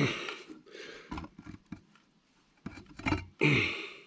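Intermittent scrapes and clicks of a rubber V-belt and metal as the fan belt is worked onto the tractor's crankshaft pulley, with a sharp scrape at the start and another a little after three seconds.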